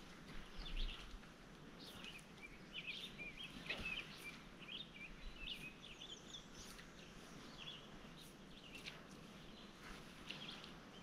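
Faint birdsong: small birds chirping and trilling again and again over a low outdoor hiss, with a soft low thump about a second in.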